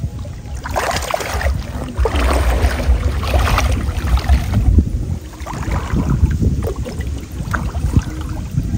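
Water splashing and sloshing as people wade and work their hands in shallow floodwater around a nylon-mesh fish trap and bamboo stakes, over a steady rumble of wind on the microphone. The splashing is densest from about a second in until near the middle, then comes in scattered splashes.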